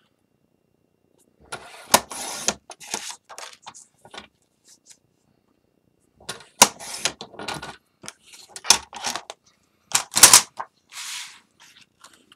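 Patterned paper being handled and trimmed on a Fiskars sliding-blade paper trimmer: bursts of paper scraping and sliding with sharp clicks of the blade carriage, once about two seconds in and again in a longer run from about six to eleven seconds.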